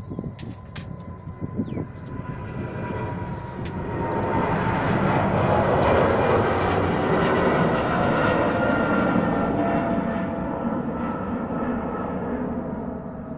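Jet airliner taking off: the engine roar swells as it lifts off, is loudest about six seconds in, then slowly fades as the plane climbs away. A thin whine sinks in pitch as it passes.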